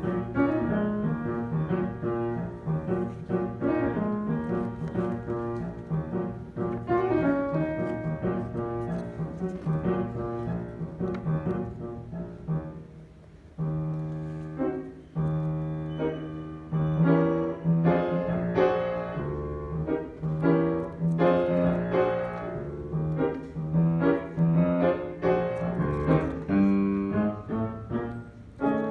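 Piano playing a continuous piece of chords and melody, with a quieter passage about halfway through before low bass notes come in and the playing grows louder again.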